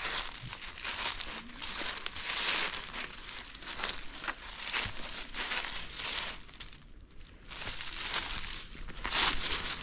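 Footsteps crunching through dry fallen leaves and brush at a walking pace, with a brief lull about seven seconds in.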